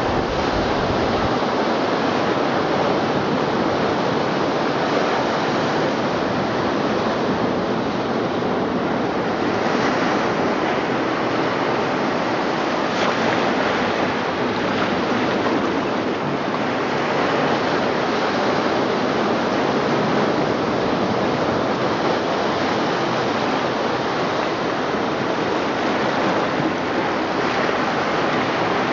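Recorded ocean surf: a steady wash of waves, the sound piece of a gallery installation.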